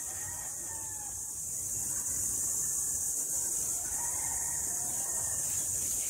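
Steady high-pitched drone of insects, with faint low rumble beneath.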